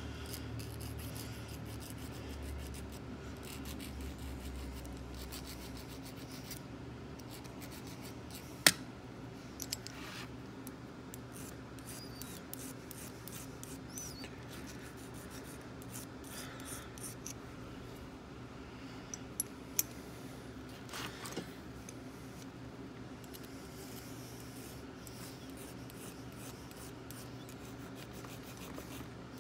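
Small hand file scraping in short strokes along the edges of a bit key's freshly cut bit, deburring the flashing left by the cut. A sharp metallic click about nine seconds in and a few lighter clicks around twenty seconds, over a steady low hum.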